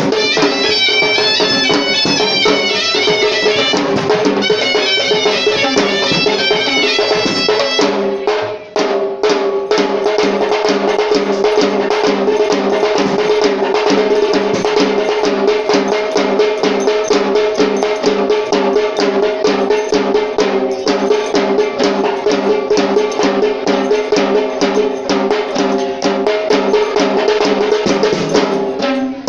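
Traditional Sri Lankan drum ensemble (bera) playing. For the first eight seconds or so a shrill reed pipe plays a fast melody over a steady drone. After a brief break, rapid, dense drumming takes over with the drone still sounding.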